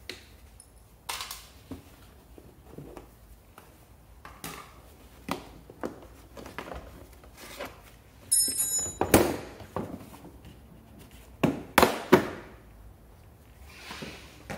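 Plastic body panels of a Peugeot Kisbee scooter being worked loose and lifted off by hand: a series of plastic knocks, clicks and thunks, loudest about nine and twelve seconds in. Just before the first loud cluster there is a brief high squeak.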